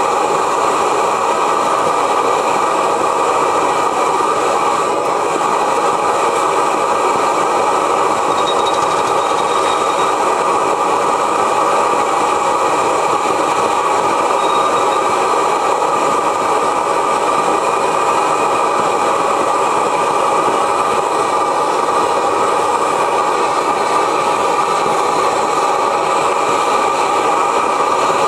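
Steady, unbroken rushing hiss of gas around a 1905 Reid hot-tube two-cycle oilfield engine, from its propane hot-tube burner or its air starter, with no regular firing beats from the engine.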